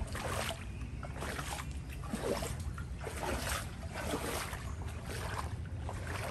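Floodwater sloshing and splashing in irregular bursts over a steady low rumble.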